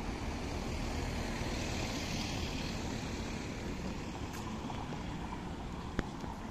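Steady low rumbling noise, with a single sharp click near the end.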